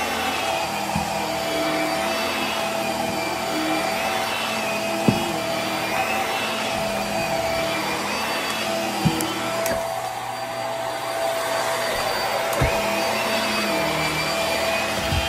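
Hart stick vacuum running on carpet: a steady motor hum with a higher whine that wavers up and down as the head is pushed back and forth, and a few dull thumps.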